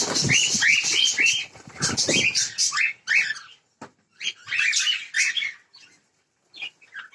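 Cockatiels chirping: many short, overlapping calls, dense at first, then thinning to scattered bursts after about three seconds.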